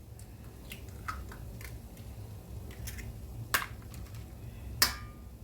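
A few light clicks and taps of kitchen handling at a pan, the two sharpest about three and a half and five seconds in, over a steady low hum.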